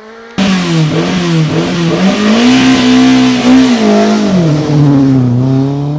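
Rally car engine at speed close by, its note climbing and dropping several times as it revs, over a loud rushing noise. It cuts in suddenly about half a second in.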